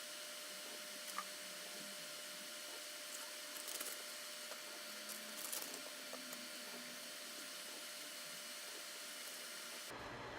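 Faint steady whir and hiss of a Dell PowerEdge R610 rack server's cooling fans running, with a few faint clicks.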